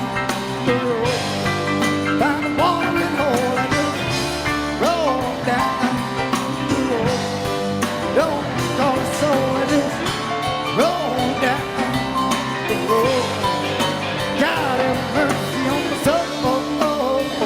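Live southern rock band playing an instrumental break, with a lead line of bending, sliding notes over steady bass and drums.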